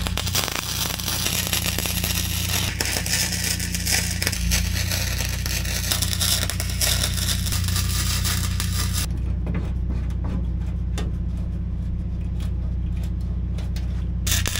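Wire-feed welder arc crackling steadily as a seam is laid along a sheet-metal floor pan patch, stopping about nine seconds in; a few sharp clicks follow, and the crackle starts again near the end. A steady low hum runs underneath.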